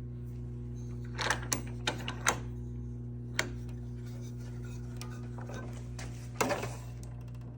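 A steady hum runs throughout, with sharp clicks and knocks of hard objects being handled: a handful about a second in, one more a little later, and another cluster near the end.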